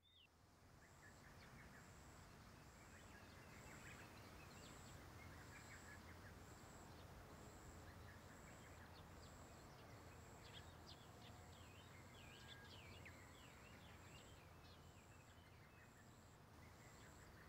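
Faint outdoor ambience: scattered bird chirps, busiest past the middle, over a soft background hiss, with a faint high pulsing tone repeating a little more than once a second.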